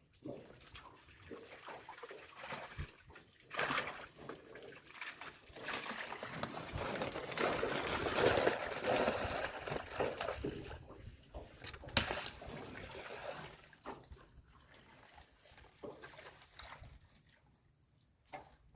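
Water splashing and trickling as a fish trap is handled at the side of a boat. It is busiest in the middle, with one sharp knock about twelve seconds in.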